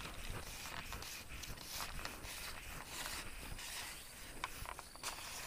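Handling noise from a telescopic fishing pole gripped in the hands, heard as irregular small clicks and rubbing. A faint steady high insect drone runs under it.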